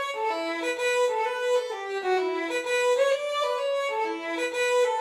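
Background music: a lone fiddle melody moving from note to note, with no beat or accompaniment.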